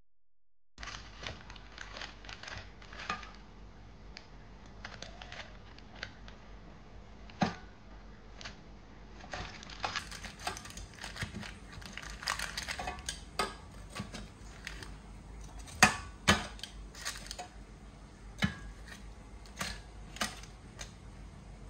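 Irregular handling noises: small clicks, taps and crinkling, with a few sharper knocks, the loudest about sixteen seconds in.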